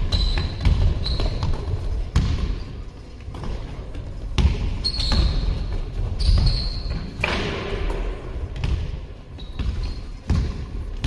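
Basketball game on an indoor court: the ball bouncing and thudding on the floor, sneakers squeaking in short high chirps several times, and running footsteps, echoing in a large sports hall.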